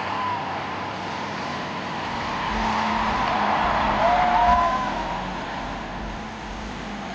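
Arena crowd cheering and screaming, with a few shrill cries standing out about four seconds in, where it is loudest.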